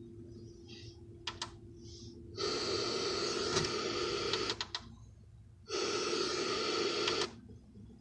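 Sony boombox's FM radio tuned one step off the station, giving two loud blocks of static hiss, the first about two seconds long and the second about a second and a half, with sharp clicks of its tuning button before and between them. Between the bursts is the faint hum of the station's dead air.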